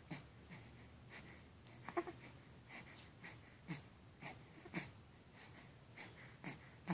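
Faint breathing and a few short, soft snuffles and grunts from an eight-week-old baby, with one small coo about two seconds in.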